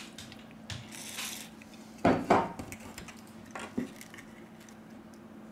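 Small hard knocks and clatter as a smartphone and repair tools are handled on a work table, the loudest about two seconds in, with a brief hiss about a second in and a faint steady hum underneath.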